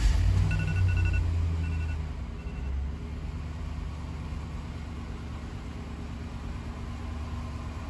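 A GMC pickup truck's engine starts and settles into a steady idle, loudest just after it catches and easing over the first few seconds. A few short dashboard chime beeps sound in the first three seconds.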